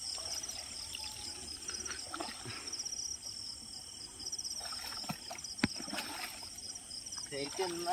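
Night insects chirping in a steady, pulsing high chorus, with water splashing and sloshing as bare feet wade through shallow water. A sharp click about five and a half seconds in.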